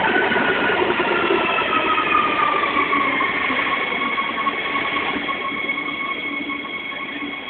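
Madrid Metro 3000-series narrow-profile electric train braking into the station, its whine falling steadily in pitch as it slows. The whole sound fades gradually.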